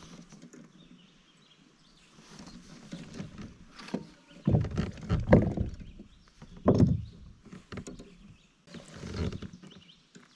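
Bumps, knocks and splashes around a kayak as a small fish is brought in, in several irregular bursts, the loudest about halfway through.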